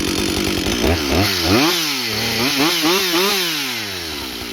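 Husqvarna 562XP two-stroke chainsaw, just hot-started on the third pull, idling and then revved several times in quick succession, its pitch rising and falling with each blip of the throttle before it drops back to idle near the end.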